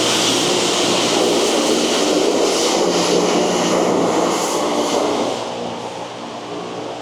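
High-pressure water spray from truck-wash wands hitting a semi truck: a loud, steady hiss over a low steady hum, easing off about five and a half seconds in.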